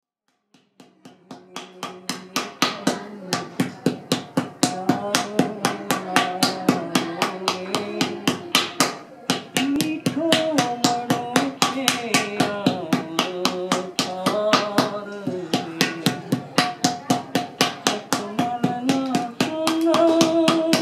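Background music: a fast, steady hand-percussion beat of about four strikes a second with a melody line over it, fading in at the start.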